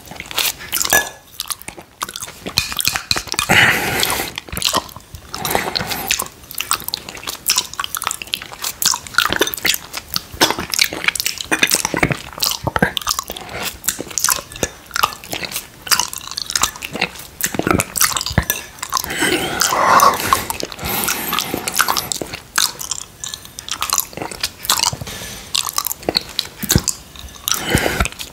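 Close-miked wet mouth sounds of a man licking and eating mango quark dessert from a glass: a dense run of lip smacks, tongue clicks and chewing.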